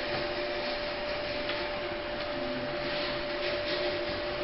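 Faint scraping and small clicks of printer frame parts being pushed and fitted by hand, over a steady hiss and a constant high hum.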